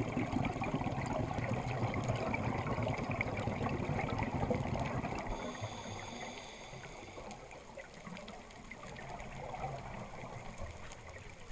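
Underwater bubbling and rushing of scuba exhaust air, loud for about the first five seconds and then quieter. A faint high whine sounds briefly about halfway through.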